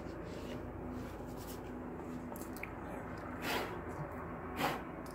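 Two brief rustling swishes over a steady low hum, the second a little louder: handling noise as a vinyl record is set onto the Technics turntable's platter.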